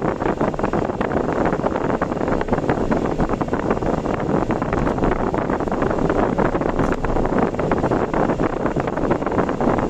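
Steady road and wind noise from a moving car, with constant rapid buffeting.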